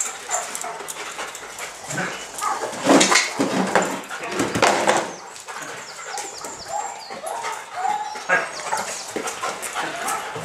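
A shepherd-type detection dog whining and barking as it searches along wooden cabinets, among sharp knocks as it jumps up at them.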